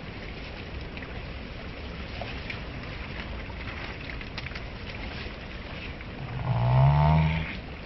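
Steady rush of river water, then about six seconds in a loud, low animal call held for about a second and a half, rising slightly in pitch.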